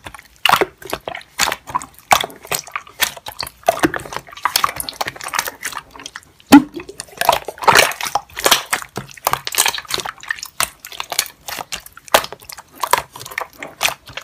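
Slime being squished and stretched by hand, making rapid, irregular wet clicks and pops as trapped air is pressed out.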